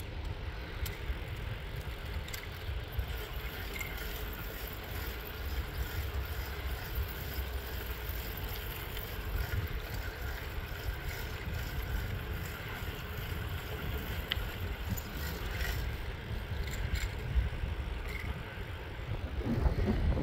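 Wind buffeting the microphone of a camera moving along a trail, a steady rough low rumble with a few faint ticks over it.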